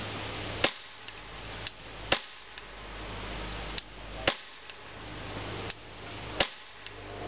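Umarex XBG CO2 BB pistol firing four semi-automatic shots about two seconds apart, each a sharp crack, with a fainter click between shots.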